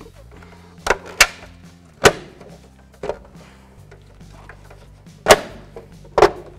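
Hubcap being knocked onto a truck wheel by hand around its rim to seat it: about six sharp knocks at uneven intervals.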